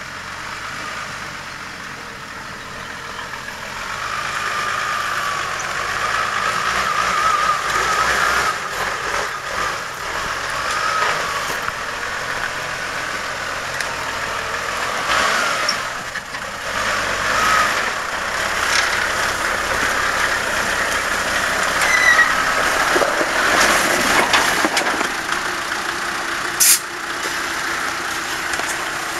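Modified off-road 4x4 truck's engine working at low speed as the truck crawls over a steep, rutted dirt track, with a whine that wavers in pitch and swells a few seconds in. A single sharp crack near the end.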